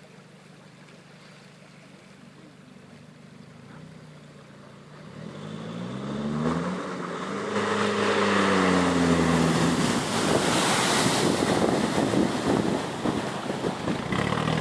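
A Nissan Patrol GR 4x4's engine working through a river ford. It is faint at first, then grows louder with the revs rising about six seconds in, and loud water splashing and churning against the body and wheels takes over as it nears, about ten seconds in.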